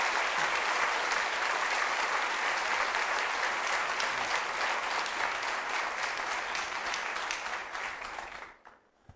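Studio audience applauding steadily, the clapping dying away quickly about a second before the end.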